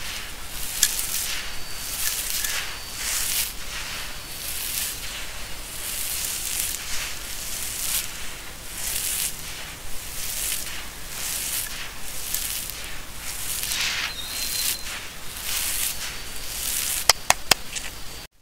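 Dry, gritty crushed sand-cement scooped up by hand and poured back onto a heap of the same grit: a hissing, crunchy pour in repeated pulses, about one a second, with a few sharp clicks of grains near the end.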